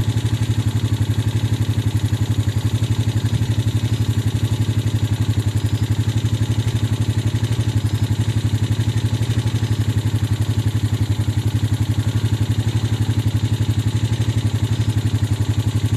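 Engine idling steadily: a low, even, rapidly pulsing hum.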